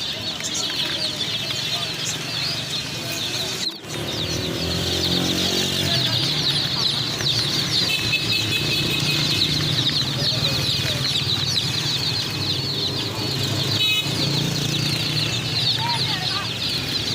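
A large group of baby chicks peeping continuously, many high, short cheeps overlapping without pause.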